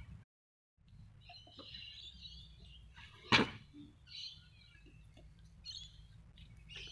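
A stunt scooter slapping down hard on a concrete footpath once, about three seconds in, over a steady low background rumble, with birds chirping on and off.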